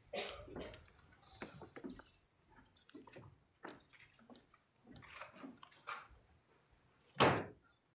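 Scattered shuffling, footsteps and small knocks of people moving about a wood-panelled courtroom as the bench empties, with one louder thump near the end.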